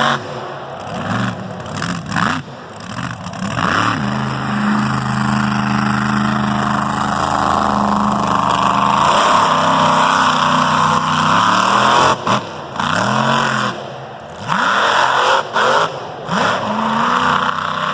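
Mega truck engine revving hard in short rising and falling bursts, then held at high revs for about eight seconds. It then drops off and is blipped up again several times.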